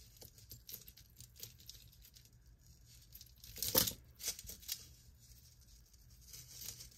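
Thin metal chain necklace being handled and untangled by hand on a cloth: faint scattered clinks and rustling, with one louder rustle a little under four seconds in.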